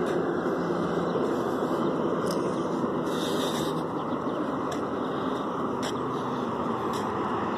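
Road traffic noise: a steady rush of tyres and engine from a vehicle on the street, slowly fading.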